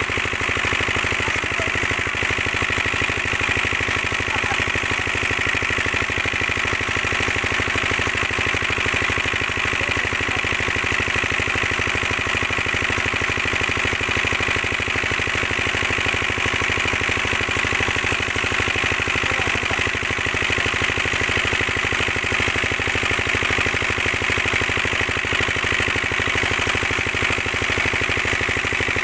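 Diesel engine of a shallow tube-well irrigation pump (shallow machine) running steadily, with water gushing from the pump's outlet pipe into a concrete tank.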